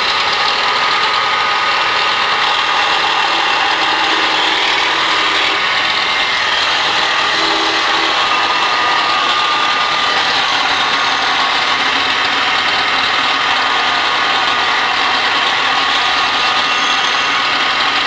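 Wood lathe driven by an electric motor, running steadily while a hand-held chisel cuts a spinning wooden spindle: an even, unbroken cutting hiss over the motor's hum.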